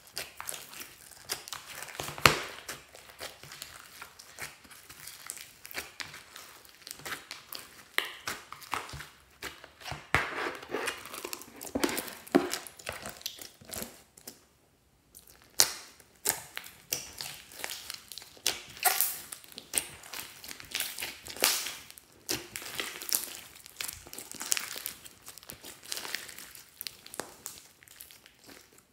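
Hands squishing and kneading a large mass of slime mixed with foam beads: a dense run of wet squelches and crackling pops, with a short pause about halfway through.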